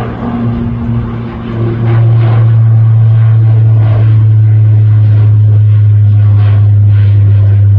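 De Havilland Canada Dash 8 Q400 turboprop climbing overhead, its propellers giving a loud, steady low drone that swells about two seconds in.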